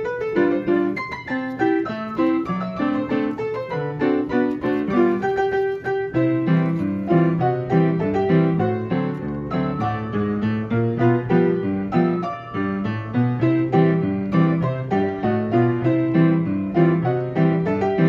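Player piano playing a perforated paper music roll: a march two-step in brisk, even rhythm, with chords and a running melody sounding without a break.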